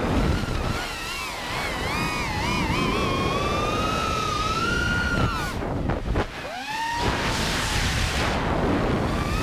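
Brushless motors of a 5-inch FPV quadcopter, loaded with a 12000 mAh 6S battery, whining with a pitch that rises and falls as the throttle moves, over wind noise on the onboard microphone. About five and a half seconds in, the whine drops away sharply as the throttle is cut, then swoops back up.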